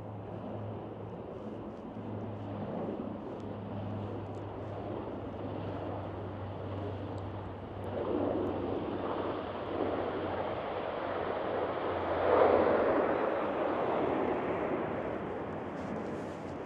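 Turboprop airliner coming in to land at a nearby island airport: a steady, low engine drone under a rushing noise that swells and fades several times and is loudest about two-thirds of the way through.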